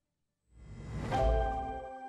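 Half a second of silence, then a TV channel's ident music starts: a swelling swoosh with a deep low boom, joined by bell-like mallet notes.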